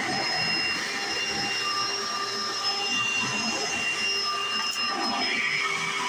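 1995 Hoover Encore Supreme U4261-930 upright vacuum cleaner running steadily: the rush of its airflow carries a high-pitched motor whine.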